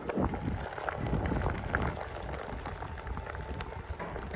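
Wind rumbling on the microphone of a handheld camera being carried along on a moving Onewheel, with scattered knocks and rustles as the camera is handled and swung around.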